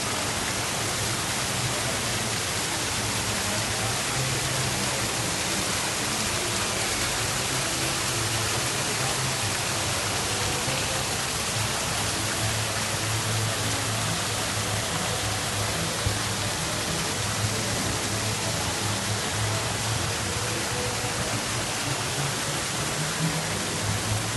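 Water from the Fountain of the Four Rivers pouring over its stone rockwork and splashing into the basin: a steady rushing.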